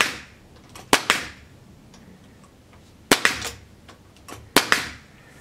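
Bostitch pneumatic brad nailer firing brads into a wooden runner: four sharp shots, one as it starts and the others about one, three and four and a half seconds in.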